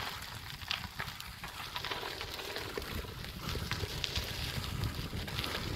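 Bicycle tyres crackling and crunching over a dry, rutted dirt track, with wind buffeting the microphone in a steady low rumble.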